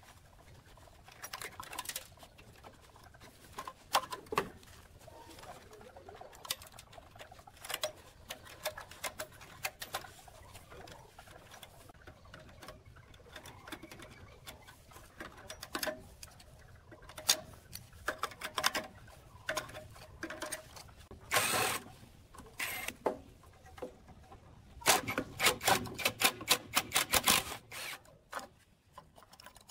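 Small metal clicks and clinks of nuts, washers and pliers on an electric motor's terminal studs, with short bursts from a cordless impact driver spinning nuts off. A fast run of rapid clicks from the driver comes near the end.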